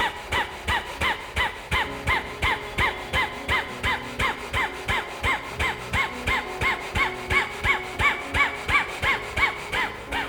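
Rapid, forceful nasal exhalations of kapalbhati breathing, a sharp puff through the nose about three times a second in a steady rhythm.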